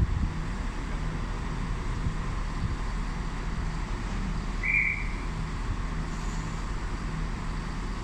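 Class 172 diesel multiple unit idling at the platform before departure, a steady low engine hum. One short high beep sounds about five seconds in.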